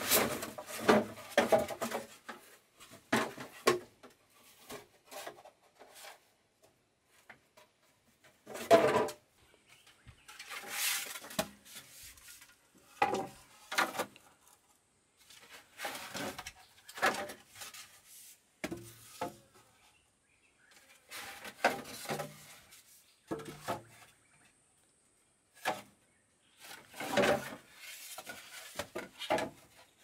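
Irregular knocks, scrapes and rustles from hands-on handling of objects, coming in short clusters with brief quiet gaps; the loudest knock falls about nine seconds in.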